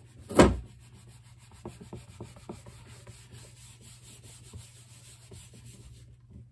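A paper towel rubbing across a whiteboard as it is wiped clean, a faint, scratchy rubbing with small ticks. There is one loud thump about half a second in.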